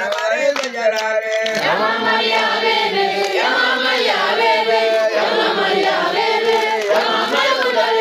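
A group of children's voices chanting together, many voices overlapping in one continuous chant.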